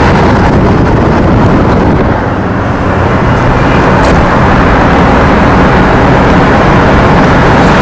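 Loud, steady rushing of road and wind noise from a car driving at highway speed, heard from inside the car.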